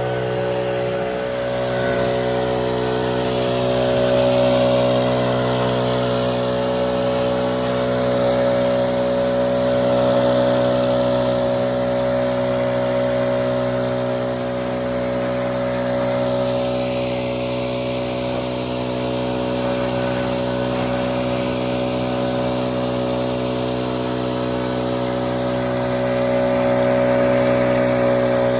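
Gas two-stroke backpack leaf blower running at a steady high throttle, its pitch held constant and its loudness swelling slightly now and then.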